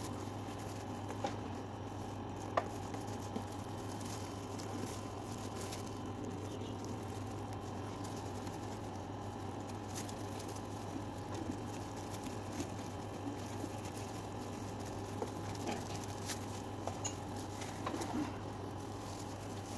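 Paintbrush working paint onto a leather bag: soft scratchy brushing with scattered light taps over a steady low hum.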